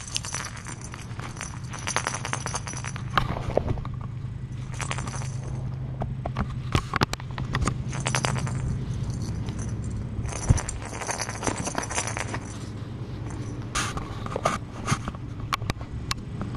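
Fabric pop-up play tent rustling and scraping in repeated bursts as a plush toy is jiggled against it, with scattered clicks. A steady low hum runs underneath.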